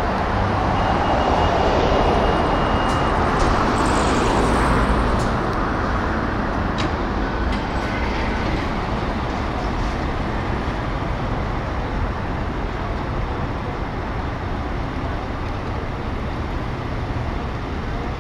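Road traffic noise with a steady low rumble; a vehicle passes close by in the first five seconds, swelling and then fading into the even traffic.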